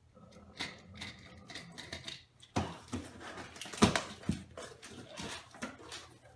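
Cardboard shipping box being opened by hand: packing tape slit and torn off, with irregular scrapes, rustles and knocks of the cardboard, the loudest knock a little under four seconds in.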